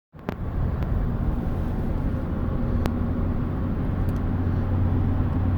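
Car running, a steady low hum with a few light clicks.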